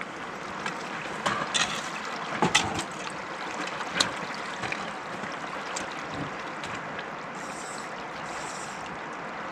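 River water rushing steadily over a gravel bar in a wide, fast river, close to the water's edge. A few short sharp clicks and knocks sound over it in the first four seconds.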